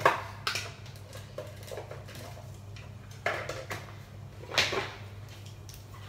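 Kitchen clatter: four or five sharp knocks and clinks of things being handled, the loudest one right at the start, over a steady low hum.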